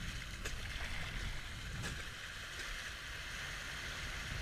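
Rushing river water around a raft, an even hiss over a low rumble, with two short clicks in the first two seconds.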